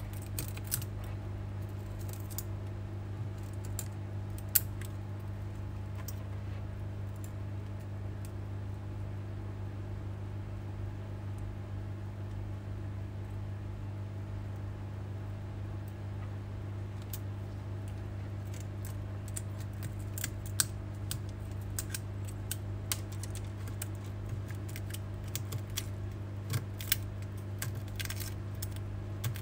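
Metal blade scraping and prying shattered back glass off an iPhone X, giving small sharp clicks and clinks of glass, over a steady low hum. The clicks are sparse at first, with a loud one about four seconds in, and come more often in the second half.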